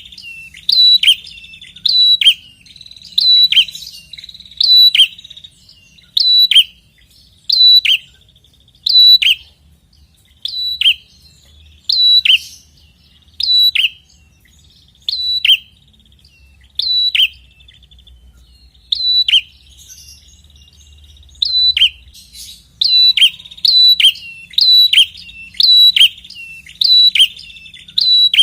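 Prenjak (prinia) calling over and over: loud, sharp notes that drop quickly in pitch, about one a second, some followed by a short rattling trill, with a brief pause about two thirds of the way through.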